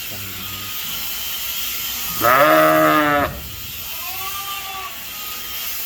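Sheep bleating. One loud, quavering bleat lasting about a second comes near the middle, followed by a fainter, shorter bleat, over a steady hiss.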